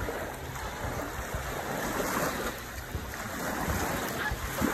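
Small waves washing onto a sandy shore, a steady rushing wash, with wind buffeting the microphone in low rumbles.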